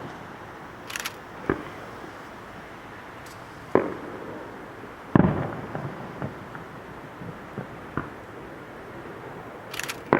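Aerial fireworks shells bursting: a series of separate booms with echoing tails, the deepest and loudest about five seconds in, and short crackling bursts about a second in and near the end.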